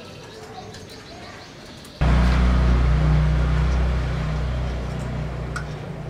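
A loud, steady motor hum with a rushing noise starts suddenly about two seconds in, then slowly fades.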